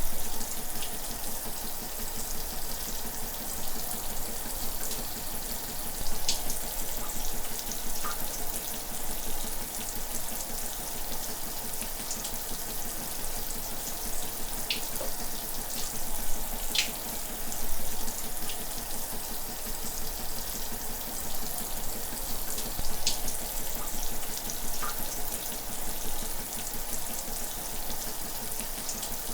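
Shower running steadily: an even hiss of falling water, with a few brief droplet-like ticks scattered through it.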